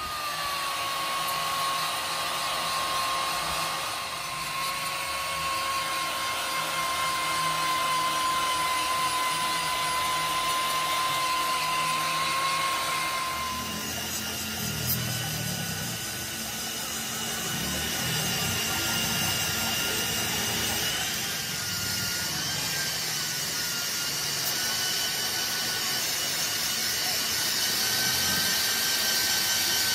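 Angle grinder with an abrasive disc running against the steel cylinder of a hydraulic jack: a steady motor whine over the rasp of the disc on metal. About 13 seconds in, the whine jumps abruptly higher and the grinding noise gets rougher.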